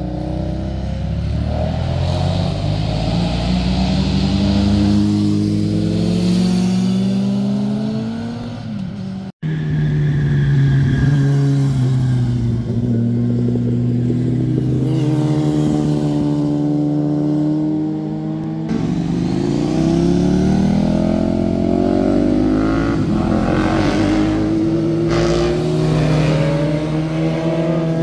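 Motorcycle engines accelerating out of a hairpin bend, the revs climbing and dropping back at each gear change. The sound breaks off abruptly twice as a new motorcycle's pass begins.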